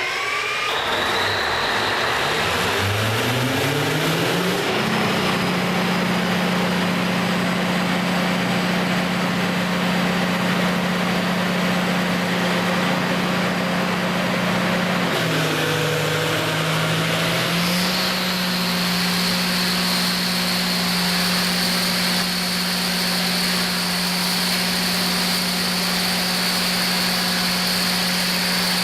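Kohler 1000 kW diesel generator set coming up to speed just after starting, its pitch rising for the first few seconds and then holding steady. About halfway through, the engine note dips and recovers a few seconds later, as the governor does when a load bank step is applied, and a high steady whine joins it.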